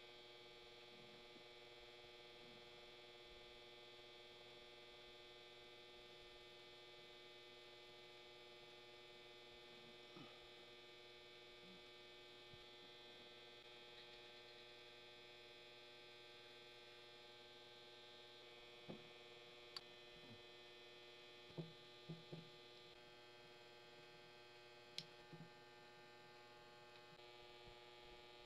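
Near silence: a faint, steady electrical hum, with a few faint clicks of small metal parts being handled in the second half.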